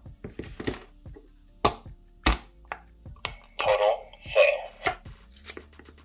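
Spring-loaded Xcelite 86NCG shears snipping: a series of sharp clicks as the blades close, several times over the few seconds. There are two short squeaky sounds a little past the middle.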